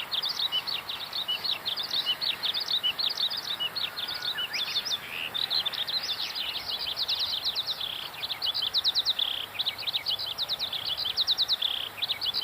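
Small songbirds chirping busily: many short, high, quickly falling notes overlapping one another, with fast runs of repeated chirps.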